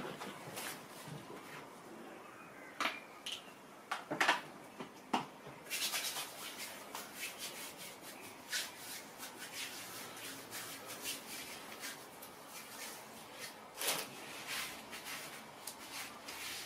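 Faint handling noises: scattered clicks and rubbing, then from about six seconds in a dense, fine crackle of small ticks with a few louder clicks.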